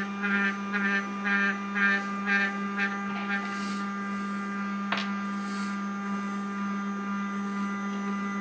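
MINGDA Goldfish X resin 3D printer's Z-axis stepper motor driving the build plate down to its home position during bed leveling: a steady motor hum. Over the first three seconds it is overlaid with a short chirping pulse about twice a second, and there is one sharp click about five seconds in.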